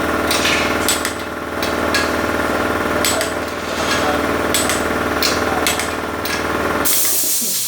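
A steady mechanical hum with sharp metallic clicks and taps coming every half second or so, which cuts off abruptly near the end.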